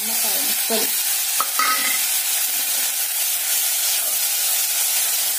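Cut lemon pieces frying in a little hot oil in a stainless-steel pot: a steady sizzling hiss.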